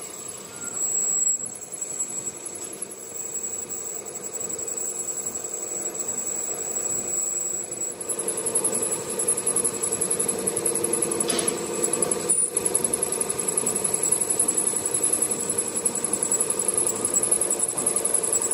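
Metal lathe running while its tool bit cuts a steel gearbox part: a steady machining noise with a thin high whine. The cutting gets louder about eight seconds in.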